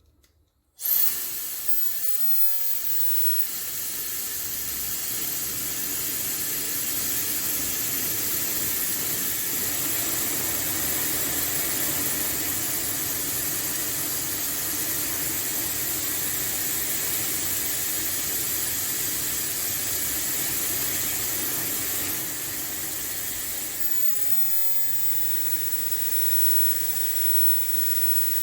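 A hair dryer is switched on about a second in and blows with a steady rushing hiss of air. It turns a little quieter about 22 seconds in.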